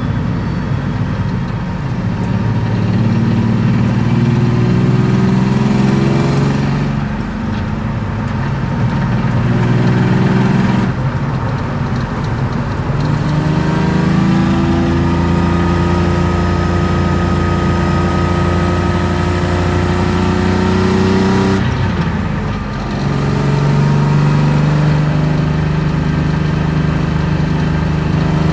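BMW M50B25 straight-six with aftermarket headers and exhaust, heard from inside the car, accelerating with the revs climbing. The engine note breaks off briefly three times, about 7, 11 and 22 seconds in, as gears change, then climbs again.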